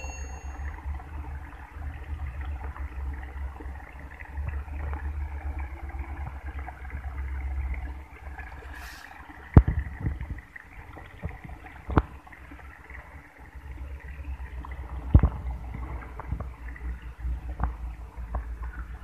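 Wind buffeting the microphone as a low rumble that eases off in the middle, over a steady hiss of water running through flooded rice paddies. Three sharp knocks come around the middle, the loudest sounds here.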